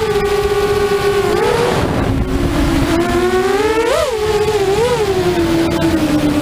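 A 5-inch FPV racing quadcopter's motors and propellers whining, the pitch rising and falling with the throttle, with quick throttle blips about 4 and 5 seconds in.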